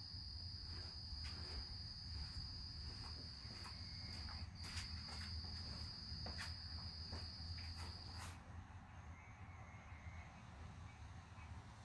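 An insect, likely a cricket, trilling one steady high note, with a short break about four and a half seconds in. The trill stops about eight seconds in. Scattered sharp ticks come through the middle, over a faint low rumble.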